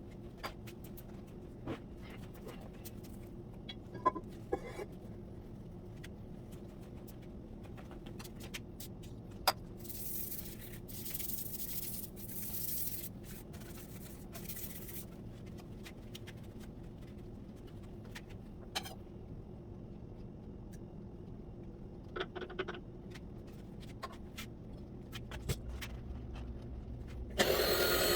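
Scattered light clicks and knocks of metal vise parts being handled, over a steady low workshop hum. A hiss runs for several seconds in the middle, and a louder steady noise starts just before the end.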